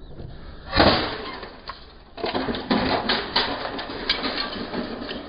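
A plastic car taillight smashed onto a concrete driveway: one loud crack about a second in, then more hits and broken plastic pieces clattering and skittering across the concrete.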